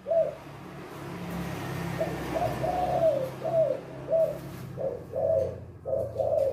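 Caged spotted doves (tekukur) cooing: a steady run of short, falling coo notes, several birds overlapping. A low hum and rushing noise swell underneath in the first few seconds and fade.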